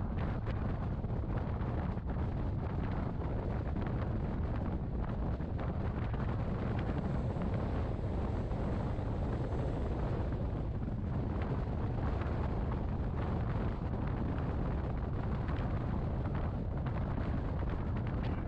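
Rhaetian Railway Bernina train running steadily, a low rumble mixed with wind rushing over the microphone held at the side of the moving train.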